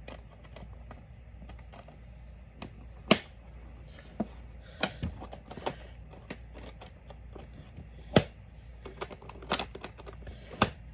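Scattered clicks and knocks of a trombone and its case being handled as it is packed away, with two sharp knocks about three seconds and about eight seconds in.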